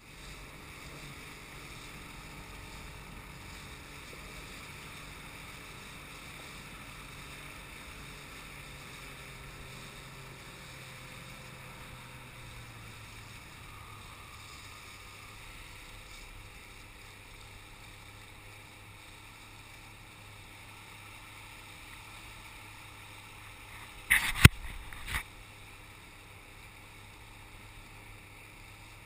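Small inflatable boat on calm sea: a steady low hum and hiss, with three sharp knocks in quick succession late on.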